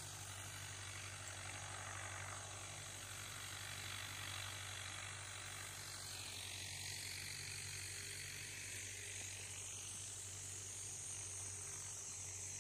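Faint, steady drone of a distant small tractor engine, with a steady high insect buzz over it.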